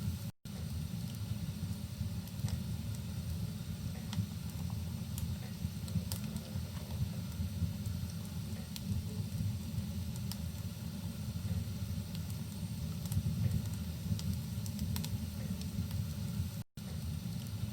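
Rain-and-fireplace ambience: a steady low rumble with scattered sharp crackles and pops of a wood fire. The sound cuts out for an instant twice, just after the start and near the end.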